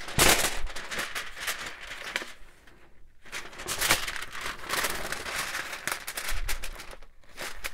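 Paper being handled and shuffled, rustling and crinkling in two irregular stretches with a short lull about three seconds in.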